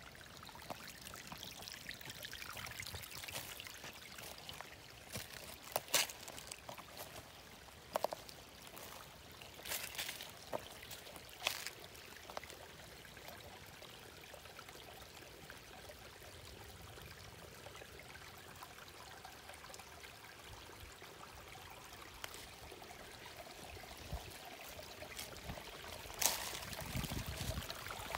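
Small woodland creek trickling softly over rocks, with a few sharp crackles a couple of seconds apart.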